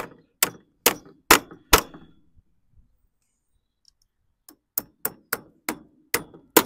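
Claw hammer driving nails through a metal nail plate into a timber rail: four blows, a pause of about two and a half seconds, then a quicker run of about seven blows, some with a short metallic ring.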